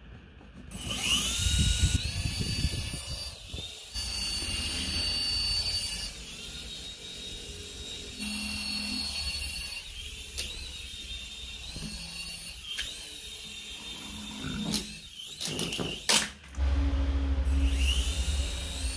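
Small toy helicopter's electric motors whining as they drive its two stacked rotors, over a steady low rumble. The whine rises several times as the motors spin up, then holds while it flies. There is one sharp click near the end.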